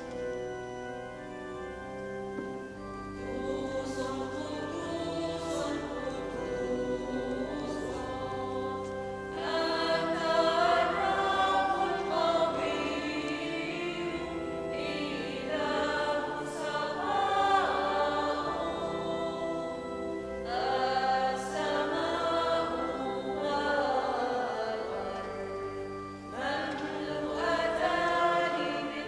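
A sacred hymn sung by a choir in chant-like phrases over sustained instrumental chords; the voices grow louder about a third of the way in.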